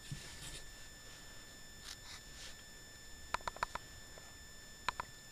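Scottish terrier sucking on a plush teddy bear as he drifts off to sleep: small clicking mouth smacks, four quick ones about three and a half seconds in and two more near the end.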